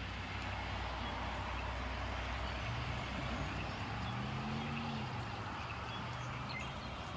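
A huge flock of murmurating birds calling, a dense mass of overlapping chatter. Under it runs a steady low traffic hum, and a vehicle engine rises and falls in pitch about four seconds in.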